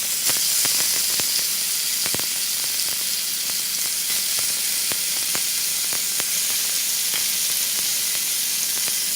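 Marinated chicken pieces sizzling in hot oil in a pan, with scattered crackles and pops. The sizzle starts suddenly as the pieces go into the oil and then holds steady.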